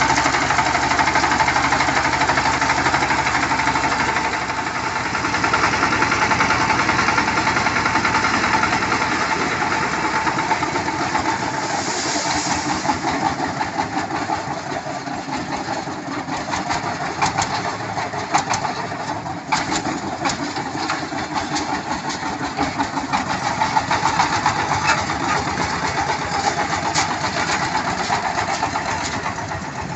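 Mini tractor's engine running steadily under load while its hydraulics raise a tipping trailer bed, with a change in the engine note a few seconds in. In the second half, a scatter of short clicks and rattles runs over the engine.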